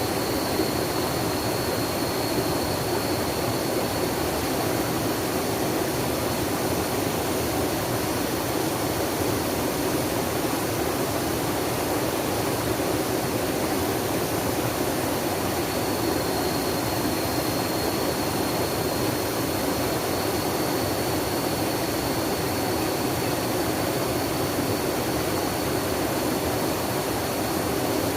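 Flowing water rushing steadily and evenly, a continuous fuller sound with no breaks or splashes standing out.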